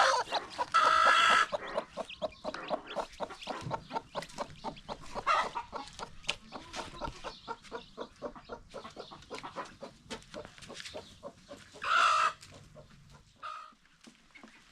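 Chickens clucking in rapid short notes, with a few louder drawn-out calls about a second in and again near the end.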